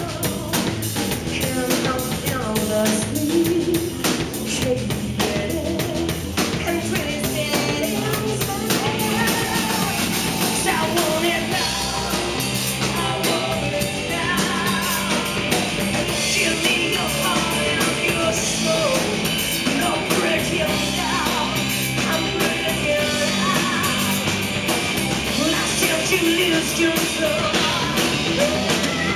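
Live rock band playing: a male singer over electric guitars and a drum kit, amplified through a PA.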